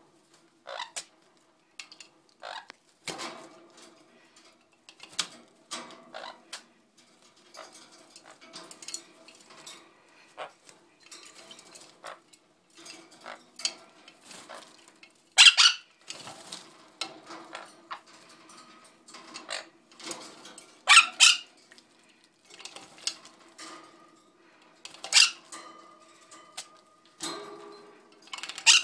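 Parrots bathing in a small plastic bird bath: water splashing and wings fluttering in irregular spells, with several sharp, loud splashes.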